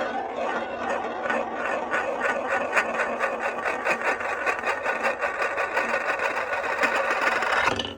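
Glass marbles rolling down a HABA wooden marble run, a rapid, even clatter of marble on wood that stops suddenly near the end.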